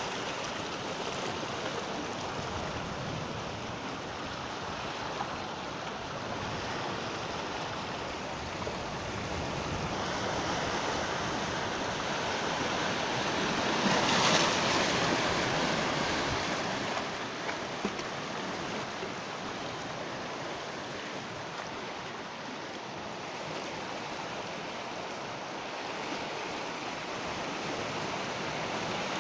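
Sea waves breaking and washing on a beach, a continuous surf that swells to its loudest about halfway through, then eases back.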